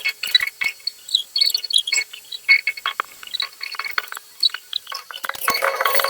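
Irregular light clicks and taps of small hard objects. A denser, busier sound with a steady pitched element comes in about five seconds in.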